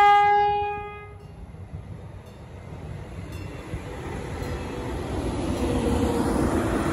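A TEXRail commuter train's horn sounds one short, steady blast that ends about a second in. Then the rumble of the approaching train grows steadily louder.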